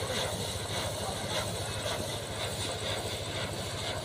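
An engine running steadily with a fast, even low throb and a constant hum.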